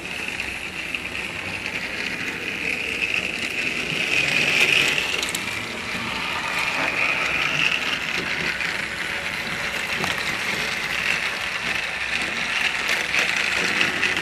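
Battery-powered TrackMaster Steelworks Thomas toy engine running on plastic track, its motor and gears giving a steady whir with light clicking that swells and fades as the train moves around the layout.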